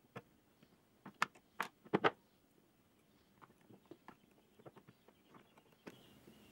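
Sealed steel ball bearing and its steel bearing housing being handled on a wooden workbench: a few sharp metal clicks and knocks as the bearing is lifted out and set down, loudest in the first two seconds, then softer light clicks.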